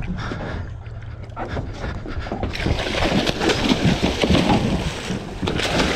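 Hooked bluefin tuna thrashing and splashing hard at the surface beside the boat as it is gaffed, starting about two and a half seconds in.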